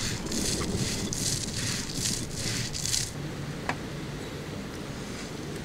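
Stone roller rubbed back and forth on an ammi grinding stone, grinding cumin and spices to a paste: a gritty scraping in even strokes, about two or three a second, that stops about three seconds in.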